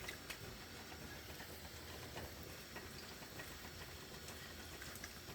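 Faint soft patting and squishing of hands rubbing seasoning into a raw whole chicken, with small scattered clicks over a low room hum.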